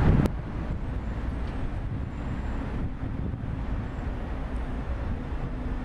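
Steady low rumble of busy city road traffic, turned down abruptly a moment in.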